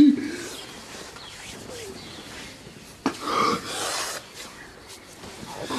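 A young man sobbing: a short strained cry at the start, then ragged, breathy sobs from about three seconds in.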